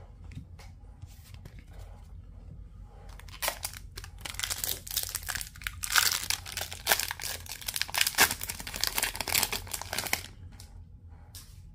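Foil wrapper of an Upper Deck Series 2 hockey card pack crinkling and being torn open: a run of crackly rustles from about three and a half seconds in until about ten seconds.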